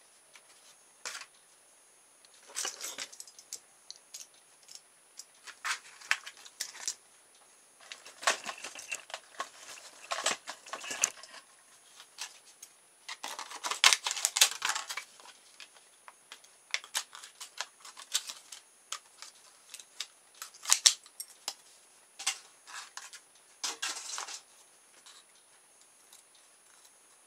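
Small scissors snipping through thin, stiff clear plastic blister packaging, in irregular bursts of snips and crackling separated by short pauses, while a propeller is cut from it.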